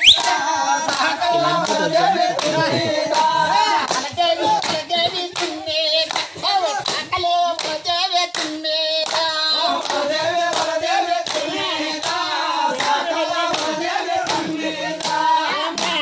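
A group of people singing together while clapping hands in a steady rhythm, for a folk circle dance.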